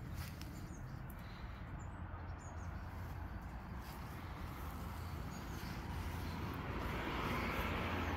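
Outdoor ambience: a steady low rumble under a few faint high bird chirps about two seconds in, with a hiss that swells toward the end.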